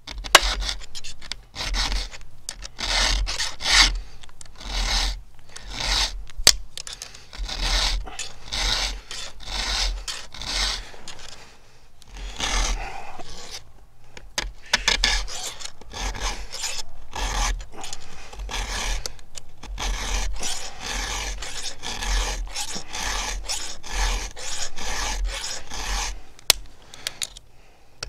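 Round chainsaw file rasping across the cutters of a 3/8 chain in quick, repeated hand strokes, sharpening a dull chain, with an occasional sharp tick of metal on metal.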